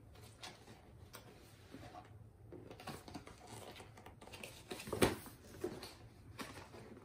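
Faint rustling and scraping of a cardboard advent calendar box and a small plush toy being handled and pulled from it. There are scattered light clicks and one sharper knock about five seconds in.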